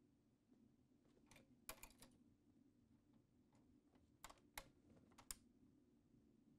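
Faint, sharp plastic clicks in two short groups, about a second and a half in and again around four to five seconds in: a Fast-Track MTP fibre connector being pushed into its plastic adapter housing, the click marking it latching into place.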